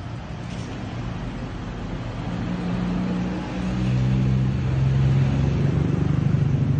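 Road traffic with a motor vehicle's engine running close by, a low steady hum that swells louder from about two seconds in.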